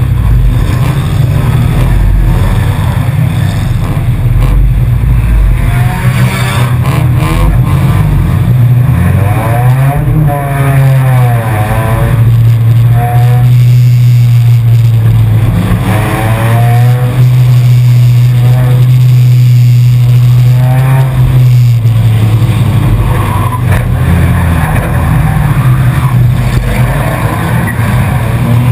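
Four-cylinder enduro race car's engine heard loudly from inside the cabin, running hard as the race gets under way. Its pitch climbs again and again every few seconds, and it holds a steady high drone through the middle stretch.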